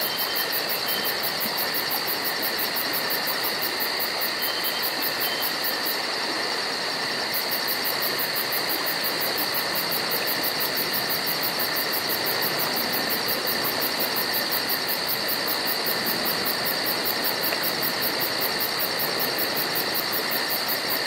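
Tropical forest insects chirring steadily: a dense high drone with a fast, even pulsing chirp above it that breaks off for about a second around six seconds in.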